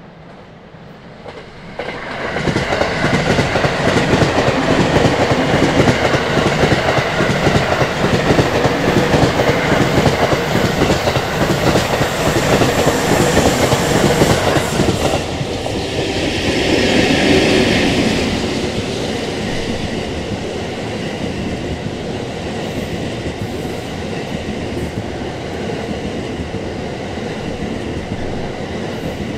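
An EF81 electric locomotive and a long rake of E26 Cassiopeia sleeper carriages passing close by: a loud rumble with the clickety-clack of wheels over the rail joints. It swells sharply about two seconds in and carries on as the carriages go by, with a brief higher hiss about halfway through.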